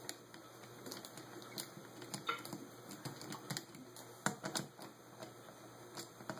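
Scattered light clicks and taps, the loudest cluster about four seconds in, from hands working on a Holley 600 carburetor and its small parts.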